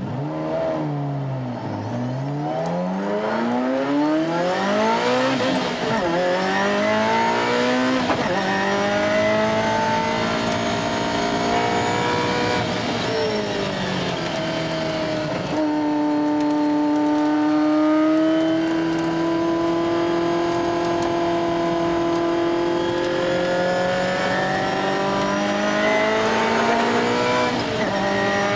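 Ferrari F40's twin-turbo V8 heard from inside the cabin under hard acceleration, its pitch climbing and dropping back several times as the driver shifts up through the gears, then holding a long, slowly rising note.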